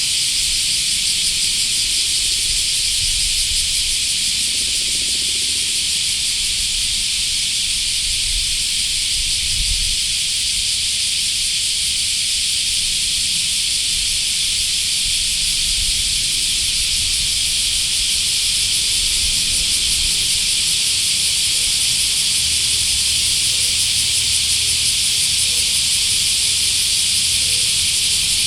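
A dense chorus of summer cicadas, a loud, steady high-pitched buzz that does not let up.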